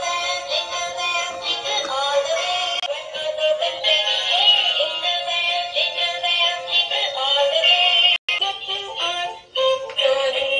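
Toy tricycle's electronic music console playing a children's tune with a synthetic singing voice. The sound is thin, with no bass, and breaks off briefly about eight seconds in before starting again.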